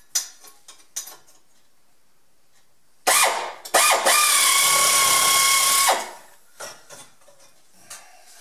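Handheld electric power tool started twice: a short burst, then about two seconds of running at a steady high whine, with a quick rise in pitch each time it spins up, before it cuts off. A few light metal clicks and knocks come before it.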